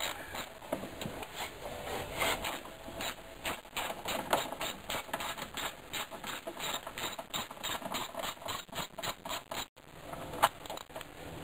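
Socket ratchet clicking in rapid runs of strokes as it backs out a 10 mm bolt.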